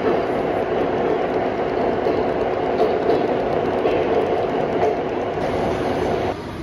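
O gauge model freight cars rolling past on three-rail track: a steady rolling clatter of wheels on rails with a steady motor hum, which stops abruptly near the end.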